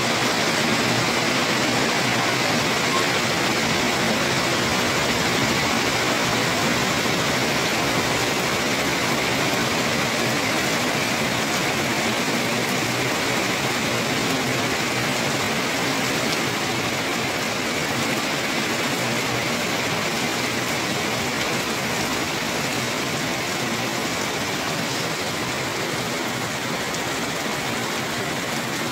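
Heavy rain falling steadily onto wet paving, an even hiss that grows slightly softer toward the end.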